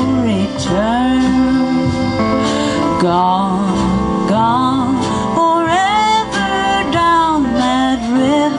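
Live country band playing: acoustic guitar and electric bass under a woman singing long, wavering held notes.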